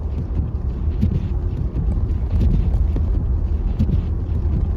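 Car driving on a snow-covered road, heard from inside the cabin: a steady low rumble of tyres and road with scattered light knocks.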